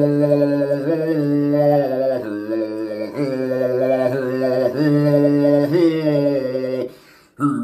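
A man's voice chanting on long, level vowel tones, shaped so that single overtones ring out above the low note: vocal overtone singing. The tone changes about once a second, and a short breath break comes near the end.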